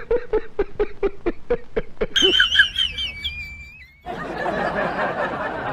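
A person snickering in quick, rhythmic bursts, followed by a high, wavering squeak that fades. About four seconds in, a long, noisy wet fart sound starts.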